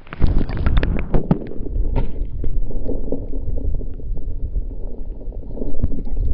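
Muffled churning water and scattered knocks heard through a camera held underwater, as a hand holds a smallmouth bass in the creek and lets it go. The sound is dull and low, with the higher sounds cut off by the water.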